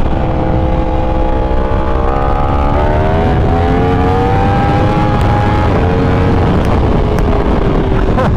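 Yamaha YZF-R1's 998 cc crossplane inline-four running under load while riding; the engine note rises steadily as the bike accelerates, then drops about six seconds in and holds lower.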